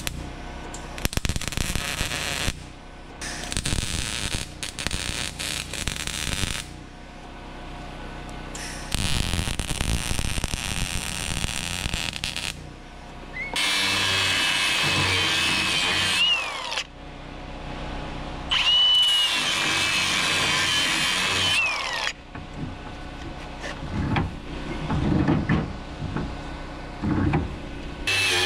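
A power tool working metal in several bursts of a few seconds each. In two of the bursts a high whine drops in pitch as the tool runs down.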